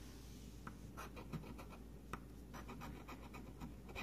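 Faint scratching of a scratch-off lottery ticket's coating being rubbed away in runs of short, quick strokes, thickest in the second half.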